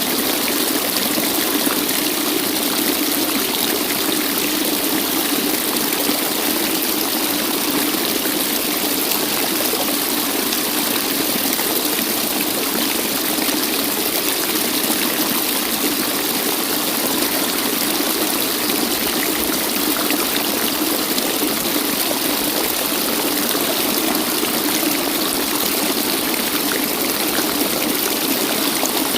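Waterfall: water pouring and splashing in a steady, unbroken rush with little low rumble.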